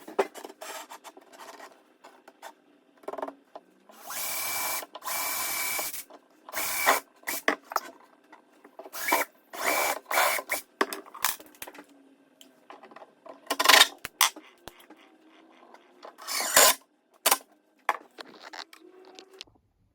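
Power drill driving screws into spotted gum hardwood in several short runs, the longest about two seconds, each with a thin steady whine. Clicks and knocks come between the runs.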